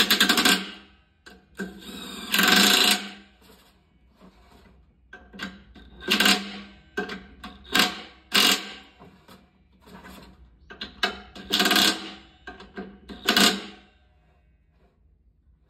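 Power screwdriver running in short bursts of up to a second, about six times, with a rapid clicking in the first burst, as screws are driven out of a washer-dryer's casing.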